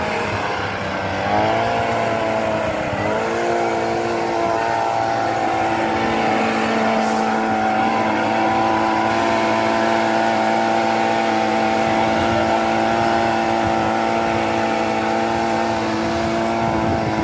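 Handheld blower running at high speed, blowing chaff and dust out of a combine harvester's radiator. Its pitch rises over the first second or two, dips briefly about three seconds in, then holds steady.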